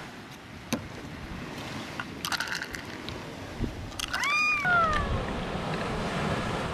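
A person's high, drawn-out exclamation about four seconds in, rising then falling, followed by a shorter falling one. Underneath, a few light clinks of ice and metal from a stainless steel cocktail shaker as the drink is poured into plastic glasses.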